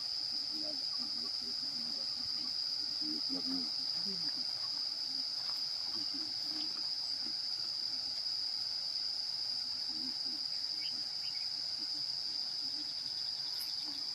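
Steady, unbroken high-pitched drone of insects, with faint, indistinct voices murmuring underneath at times.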